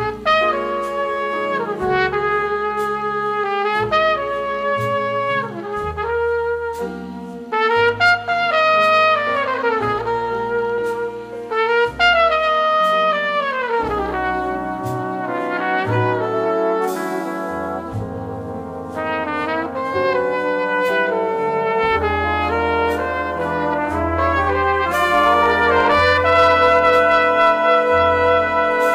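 A jazz big band plays a ballad: a solo trumpet carries the melody in falling phrases over string bass, piano and sustained saxophone and brass chords. Cymbal swells come in twice, and the full band grows louder over the last third.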